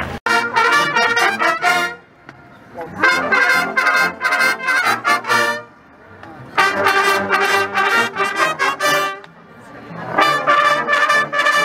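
A Bersaglieri fanfare, a military brass band of trumpets and flugelhorns, playing a march in four loud phrases separated by brief pauses of about a second.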